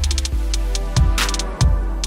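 Background electronic music with a heavy bass line and a steady drum beat.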